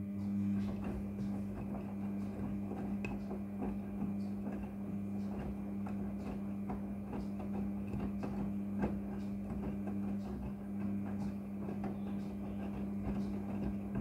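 Front-loading washing machine's drum motor running with a steady hum while the drum turns a load of jeans through soapy water, with scattered splashes and knocks of wet fabric tumbling. The motor starts abruptly at the outset.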